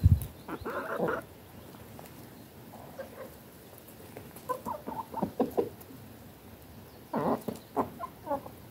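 Chickens softly clucking and pecking at eggshells. There is a longer call about half a second in, then scattered short clucks in small groups, with faint pecking clicks. A brief low thump sounds right at the start.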